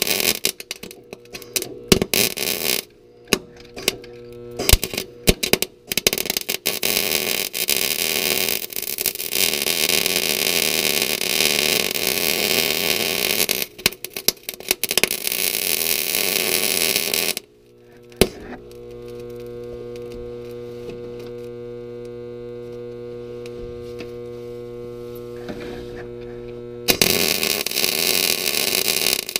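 Arc welder crackling as weld is laid on a rusted nut under a truck bed: short stop-start spells at first, then a longer run of about ten seconds. The arc then breaks off, leaving a steady electrical hum for several seconds, and the crackling starts again near the end.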